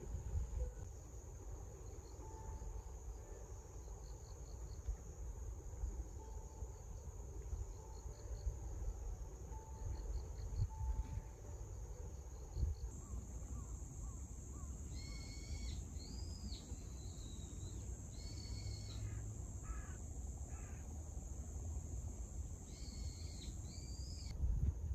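Outdoor evening ambience: a steady high-pitched insect drone over a low wind rumble on the microphone. From about 15 seconds in, a bird gives several loud arching calls, first in a cluster and then again just before the end.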